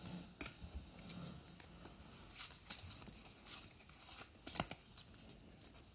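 Faint, scattered clicks and rustles of trading cards being handled and slid against one another, with one sharper click about two-thirds of the way through.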